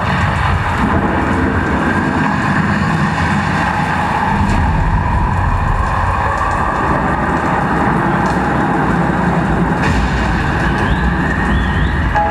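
Rumbling, rain-like sound effects from a projection-mapping show's soundtrack, played over outdoor loudspeakers, with a faint whoosh that slowly rises in pitch.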